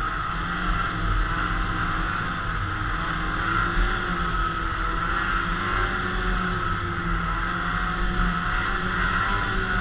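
Polaris snowmobile engine running at a steady trail speed, its pitch rising and falling slightly as it goes.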